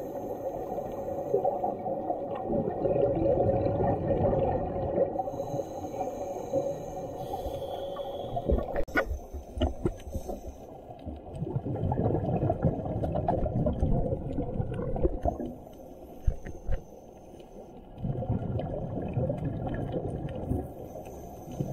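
Muffled underwater sound through a waterproof camera housing: scuba divers' regulator exhalations gurgling and rumbling in surges of a few seconds over a steady hum, with a few sharp clicks about halfway through.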